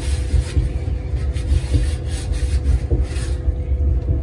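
Repeated hand-scrubbing strokes on a washing machine's surface, stopping about three seconds in, over a steady low rumble.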